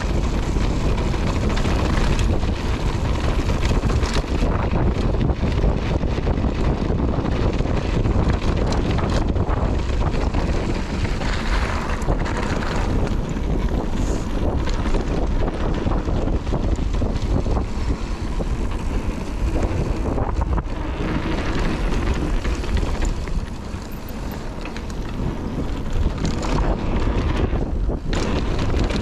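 Wind rushing over an action camera's microphone during a downhill mountain-bike ride, mixed with tyre noise on the dirt trail and the bike's rattle over bumps. It eases off for a couple of seconds near the end.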